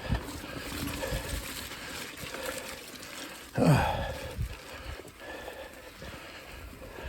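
Mountain bike rolling along a dirt trail: tyre noise with irregular low knocks and rattles, and a brief louder rush that falls in pitch about three and a half seconds in.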